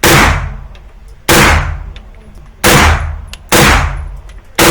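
PSA AKV 9mm carbine firing five single shots, about one a second, each followed by a long fading echo.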